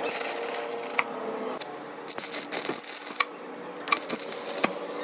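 Stick-welding arc crackling and sizzling in short spells as the electrode burns against the steel axle shaft, with sharp pops scattered through.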